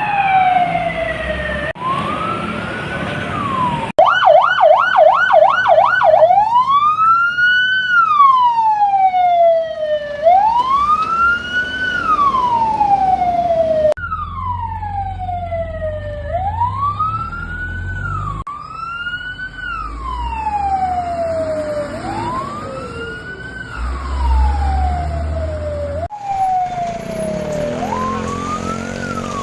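Fire truck sirens, several short recordings cut together, each wailing up and down in pitch. About four seconds in there is a quick yelp of rapid up-and-down cycles, then slow wails again. A low truck engine rumble sits underneath in parts.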